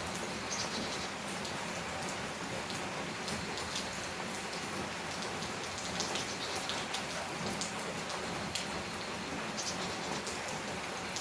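Steady rain falling on a tin roof and leaves, with many sharp individual drop hits scattered through it.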